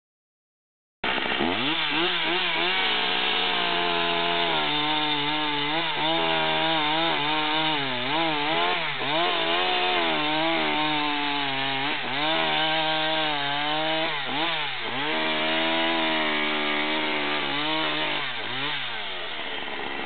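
Two-stroke chainsaw cutting through a log, its engine pitch rising and falling as the chain bites into the wood and frees up. It starts about a second in and drops lower toward idle near the end.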